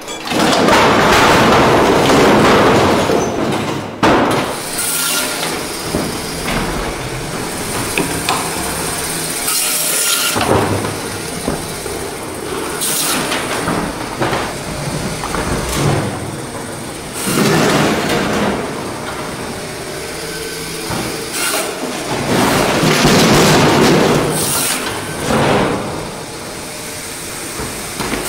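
Fish-processing work noise: hard-frozen whole tuna scraping and knocking against metal racks and tables, with a band saw cutting through frozen fish. Several louder scraping swells last a couple of seconds each, over a steady machine hum.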